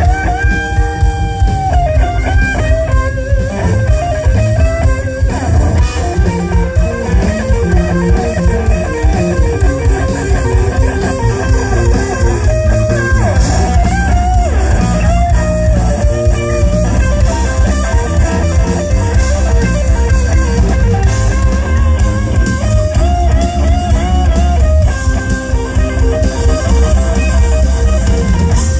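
Live rock band playing loud: an electric guitar lead with long, bending sustained notes over bass guitar and drums.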